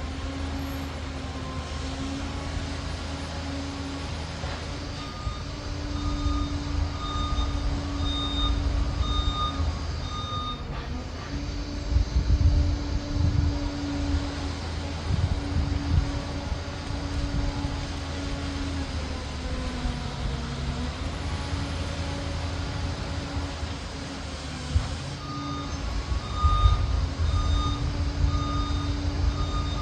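Liebherr PR 746 Litronic crawler dozer's diesel engine running with a heavy low rumble that swells now and then. Its reversing alarm beeps about twice a second in two stretches, a third of the way in and again near the end, as the machine backs up.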